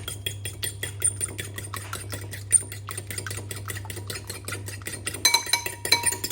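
A utensil beating an egg with a little milk in a bowl: a fast, even tapping against the bowl, about eight taps a second, with a few ringing clinks near the end.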